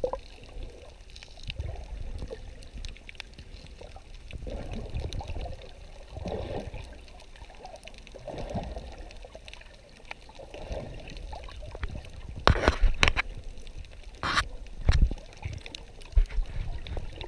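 Water heard from underwater while snorkeling: a muffled, uneven low sloshing and gurgling. Near the end it is broken by a handful of sharp clicks and knocks.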